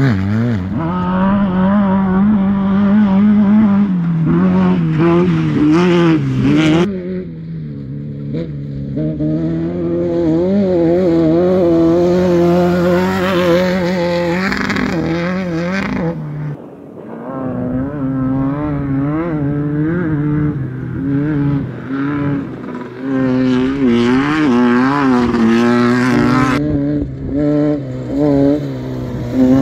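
Off-road race buggy engines running at high revs, the pitch wavering up and down continually. The sound switches abruptly to another pass about 7 s in, again about 16 s in, and once more near the end.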